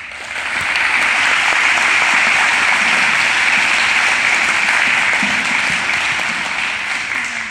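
Audience applauding, building over the first second, holding steady, then fading near the end.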